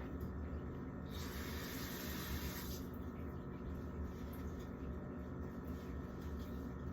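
A short burst of water hissing from a kitchen tap, lasting under two seconds and starting about a second in, as something is rinsed off. A low, steady hum sits underneath.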